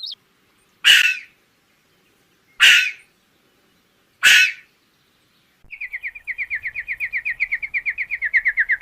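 Bird calls: three short, harsh calls about a second and a half apart, then a rapid trill of quick repeated notes at about ten a second.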